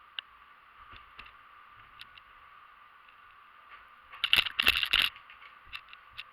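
A burst of loud rattling clicks for about a second, starting about four seconds in, with a few scattered single clicks over a steady faint hiss.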